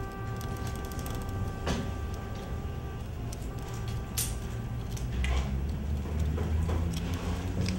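A held note with its overtones, like a drone in a soundtrack, stops about three seconds in, over a low rumble that grows toward the end. A few short, sharp clicks sound through it.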